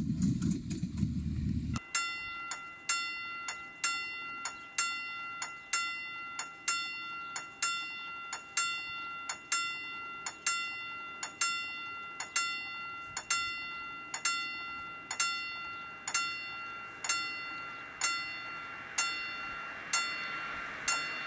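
Railway level-crossing bell ringing in a steady rhythm, about one strike a second, each ring dying away. It starts when a low engine rumble cuts off suddenly about two seconds in. A hiss rises under the bell near the end.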